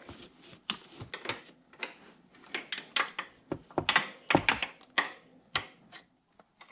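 Irregular sharp clicks and clacks, a few a second and busiest about four to five seconds in, of hand tools against metal and plastic as hands work at the radiator mounting bolts of a Can-Am Renegade ATV.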